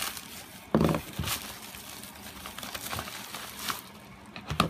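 Plastic shipping mailer crinkling and rustling in the hands as a small cardboard box is pulled out of it, in irregular handling noises. The loudest comes just under a second in.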